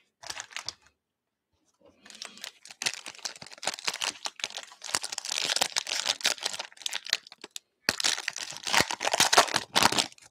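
Foil trading-card pack crinkling as it is handled and torn open, in uneven bursts of crackle, after a short quiet pause near the start, with the loudest burst near the end.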